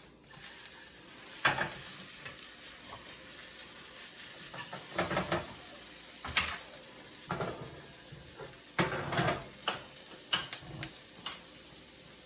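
Food sizzling in oil in a frying pan, a steady hiss, with a utensil now and then knocking and scraping against the pan as it is stirred.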